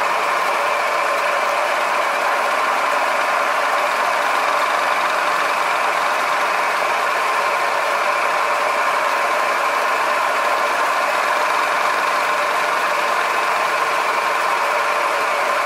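Milling machine spindle running with an end mill cutting a slot in a metal plate as the table feeds the cut across; a steady, even machining whine.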